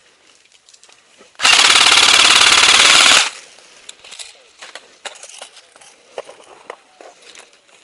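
Airsoft rifle firing one long full-auto burst of rapid, evenly spaced shots, close and loud, lasting about two seconds and starting about a second and a half in. Faint scattered clicks follow.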